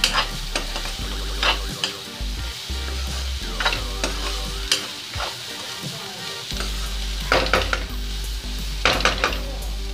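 A metal spatula scraping and clinking against a kadhai, at irregular moments, as chopped cauliflower stalks and onions with spices are stirred, sizzling steadily in hot oil.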